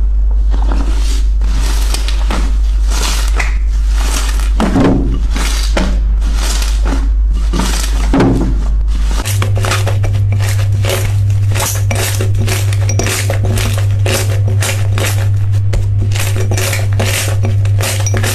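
Slime being squished and pressed, making many quick clicks and crackles, over background music with a steady low bass note that steps up in pitch about nine seconds in.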